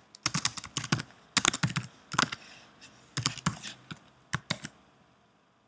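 Typing on a computer keyboard: quick key clicks in several short bursts, stopping a little over a second before the end.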